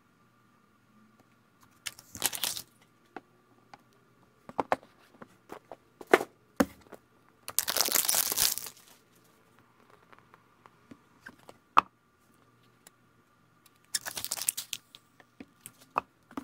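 Plastic wrapping and film from iPhone boxes crinkling and tearing as they are unwrapped by hand, in three rustling bursts: a short one about two seconds in, a longer, louder one around the middle and another near the end. In between come sharp clicks and knocks of phones and box parts being handled and set down on a table.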